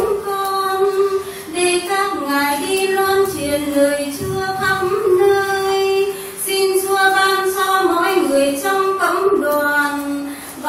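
Female voices singing a Vietnamese Catholic hymn in sustained melodic phrases, with brief pauses for breath between phrases.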